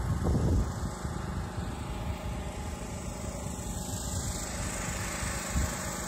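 Engine-driven generator running steadily, with a low uneven rumble of wind buffeting the microphone, strongest in the first second.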